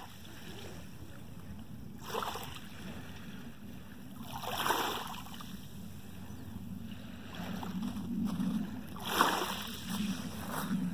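Small waves lapping softly at the water's edge in several brief washes, the loudest about halfway through, over a steady low rumble.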